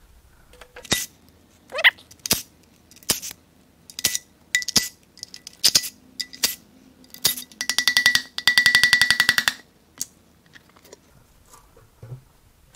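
Metal clicks and clinks of a ratchet wrench backing out oil pan bolts: single clicks at first, then a fast run of clicks lasting about two seconds.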